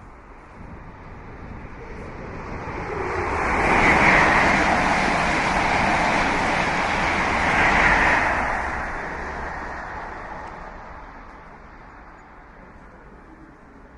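Train passing a platform: a rushing rumble that builds over about four seconds, stays loud for about four seconds with two peaks, then fades away.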